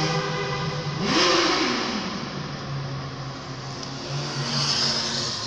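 Motorcycles riding past close by in a convoy, heard from inside a car. About a second in, one engine revs up and back down, and near the end another bike, a dirt bike, goes by. A steady engine hum runs underneath.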